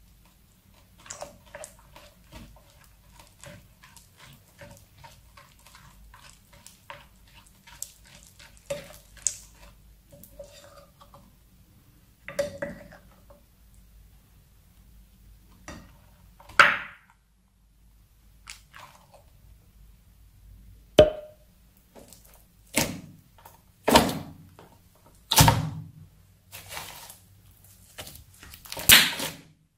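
A silicone spatula stirring sticky clear glue with sequins in a glass bowl, making a run of soft sticky clicks. In the second half, thick slime is stretched and pressed, giving several loud wet pops and squelches as trapped air breaks out.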